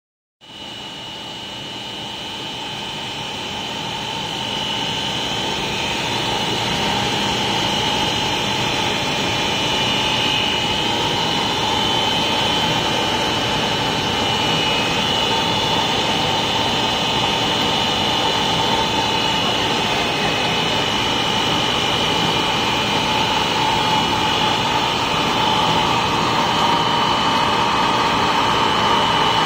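A running LLDPE stretch film cast extrusion line: a steady machine din of motors and fans with a constant high whine, building up over the first few seconds.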